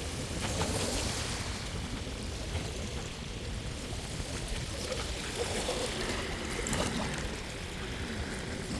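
Water rushing steadily, with a low rumble underneath.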